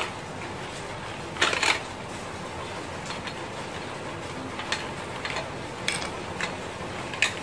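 Scattered light clicks and taps of a screwdriver and small metal parts on a plastic 13 A wall socket being rewired, over a steady hiss. The loudest is a quick double click about one and a half seconds in.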